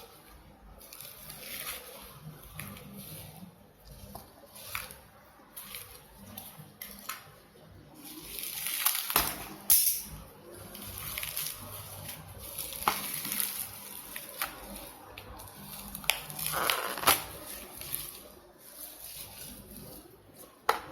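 Packing material being pulled off by hand: crinkling and rustling of plastic and paper wrapping, with scattered light clicks and taps from handling. It is loudest about eight to ten seconds in and again around sixteen to seventeen seconds.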